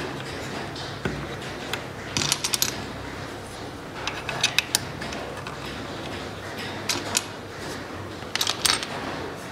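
Groups of quick, sharp little clicks and taps from a homemade sliding ball-drop toy, coming in about five short clusters a second or two apart over a steady background hiss.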